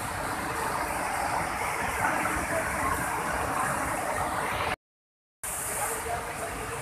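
Floodwater from a flash flood rushing over a river weir, a steady roar of water. The sound cuts out completely for about half a second a little under five seconds in.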